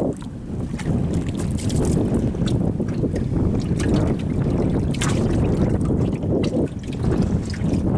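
Wind buffeting the microphone over the sea's wash on a small fishing boat, a steady low rumble with scattered short clicks and ticks.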